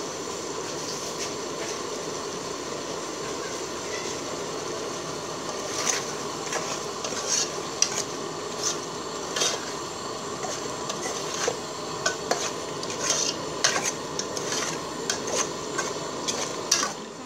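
A ladle stirring a thick pineapple curry in an aluminium pot, knocking and scraping against the pot in quick irregular clicks from about six seconds in. Under it runs a steady hiss from the simmering pot.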